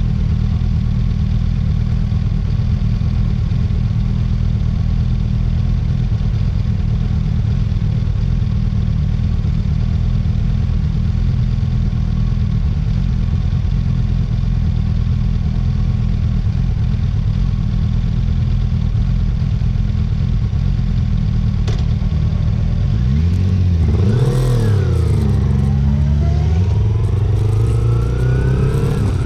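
Motorcycle ride with a steady low wind rumble on the camera's microphone. In the last few seconds the engine note falls and rises as the bike slows and changes speed, then climbs steadily as it accelerates.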